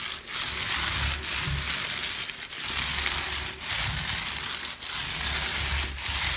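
Paint roller loaded with wall paint rolling back and forth over a wall: an even hiss in strokes of about a second each, about six in all.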